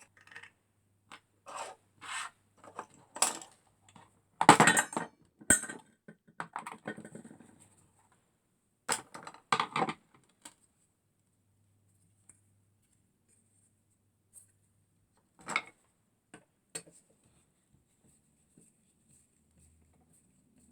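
Metal tools clinking, knocking and scraping against a vacuum cleaner motor as its impeller nut is unscrewed with the armature clamped. The knocks come thick over the first ten seconds, then two more a few seconds later.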